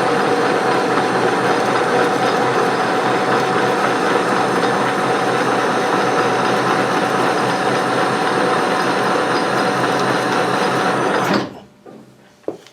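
Metal lathe running at about 250 RPM with the half nut engaged, its gear train whirring steadily through a thread-cutting pass. It stops abruptly near the end, followed by a few light knocks.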